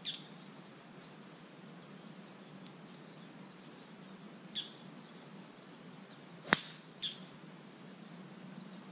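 Golf club striking a teed ball on a tee shot: one sharp crack about six and a half seconds in. Short bird chirps come at the start, about four and a half seconds in, and just after the shot.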